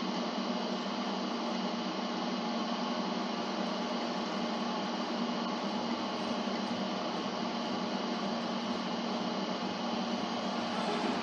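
Steady, even background noise with a low hum, unchanging throughout, with no distinct events.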